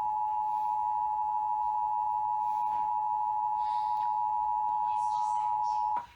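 Emergency Alert System attention signal: two steady tones sounding together as one harsh, unbroken chord, marking the start of an emergency alert broadcast. It cuts off abruptly about six seconds in.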